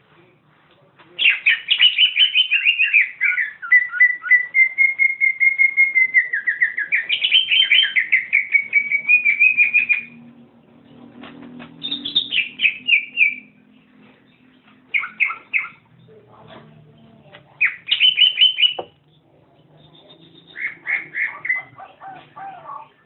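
Greater green leafbird (cucak hijau) singing loudly. About a second in it starts a long unbroken run of fast chattering notes that slide up and down in pitch for roughly nine seconds. After that come four shorter bursts of quick repeated notes with pauses between them.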